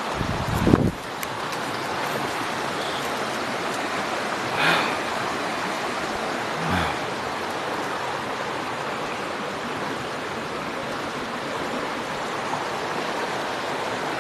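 River water rushing steadily, an even hiss of flowing water. A brief low bump of microphone handling or wind comes in the first second.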